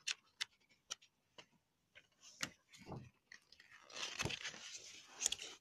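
Faint handling of a paper picture book: scattered small taps and clicks, then a longer paper rustle about four seconds in as a page is turned.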